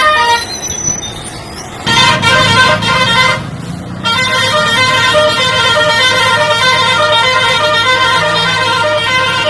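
Truck horn blaring, with a low engine rumble under it. There is a short blast at the start, a longer one about two seconds in, and a continuous blast from about four seconds in.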